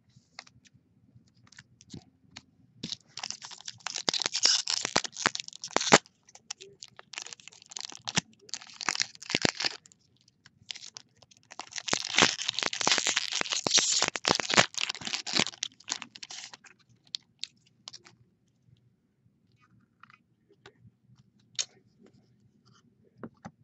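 Foil trading-card pack wrapper crinkling and tearing as it is opened, in three stretches of handling, then a few small clicks and taps as the cards are handled.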